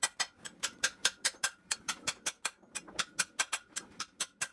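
Rapid, regular clicking, about five or six sharp clicks a second, each with a slight metallic ring.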